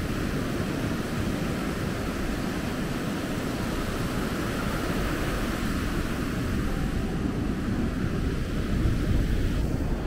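Pacific surf washing steadily on the beach, with wind buffeting the microphone in a choppy low rumble.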